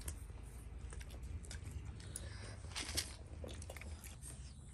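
People eating: chewing and small crunches with scattered light clicks, a slightly louder cluster of clicks about three seconds in, over a low steady hum.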